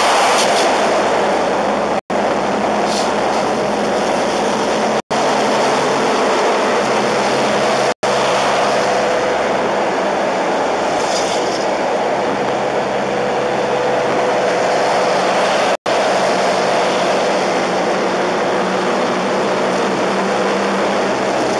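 Steady road and tyre noise with a low engine hum, heard inside a moving car's cabin at motorway speed. The sound cuts out for an instant four times.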